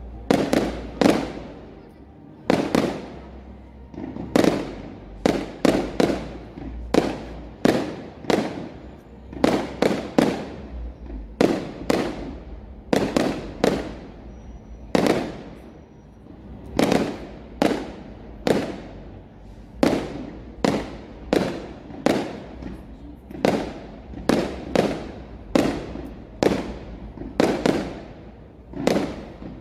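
Aerial firework shells bursting in steady succession, about one to two bangs a second, each bang trailing off in an echo.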